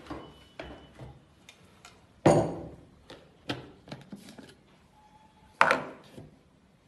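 Handling noise from a Kenstar mixer-grinder's plastic jar and lid as the jar comes off its base and the lid is pulled off: scattered light clicks and knocks, with two louder knocks about two seconds in and near the end.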